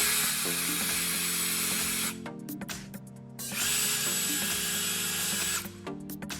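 Power drill running in two bursts of about two seconds each, with a steady high whine.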